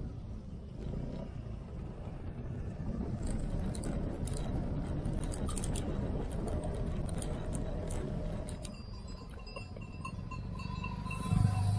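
Vespa scooter riding, heard from on board: a steady low engine and wind rumble, with a run of rattles and knocks in the middle as it rolls over cobblestones. A loud thump comes near the end.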